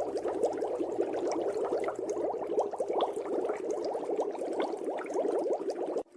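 Continuous underwater bubbling: a dense stream of small bubbles popping rapidly, which cuts out briefly at the very end.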